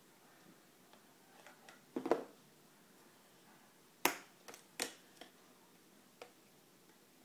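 Small plastic food cup and plastic spoon knocking against a plastic high-chair tray: a few knocks about two seconds in, then a run of sharp clicks and taps, the loudest about four seconds in.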